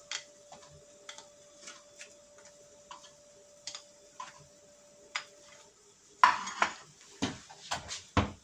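Buttered bread slices being moved by hand from a wooden cutting board onto a ceramic plate: light clicks and taps, then several louder knocks near the end as the plate is set down on the wooden board. A faint steady whine underneath stops about six seconds in.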